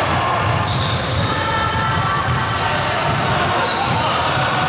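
Indoor basketball game in play: the ball bouncing on the court and sneakers squeaking on the floor, over a steady din of game noise.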